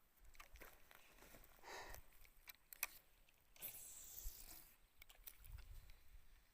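Near silence with faint scattered clicks and two short stretches of rustling.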